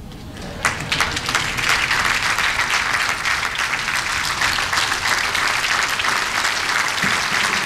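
A large audience applauding, starting just as the music stops and building within the first second into steady, sustained applause.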